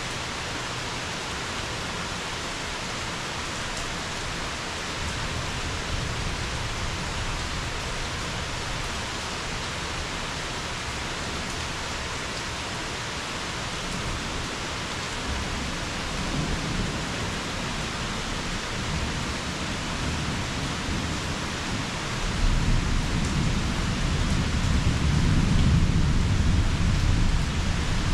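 Steady rain falling, with thunder rumbling under it: a low roll about five seconds in, another around sixteen seconds, and a longer, louder roll building from about twenty-two seconds in.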